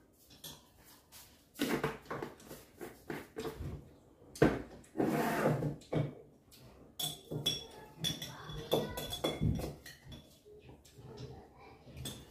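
Metal spoons clinking and scraping against ceramic bowls and glass jars during a meal: a run of light knocks, with a few ringing clinks in the second half.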